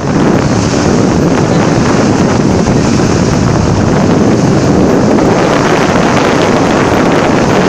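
Loud, steady wind buffeting the microphone over the rush of a ship's bow wave breaking into foam around the bulbous bow.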